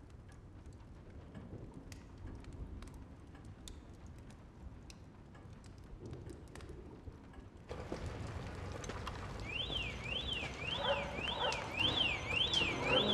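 Steady rain with scattered drips. About two-thirds of the way in, a Ferrari's car alarm starts wailing, a siren sweeping up and down about twice a second.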